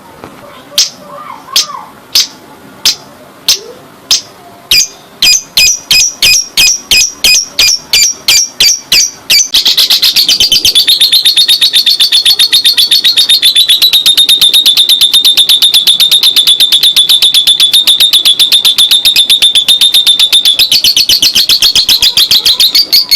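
Lovebird's long 'ngekek' chattering song: separate shrill chips at first, coming faster and faster, then from about ten seconds in a continuous rapid rattle of high notes held for over ten seconds.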